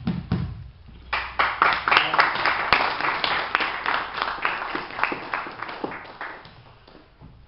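A small group clapping their hands, starting about a second in and dying away near the end.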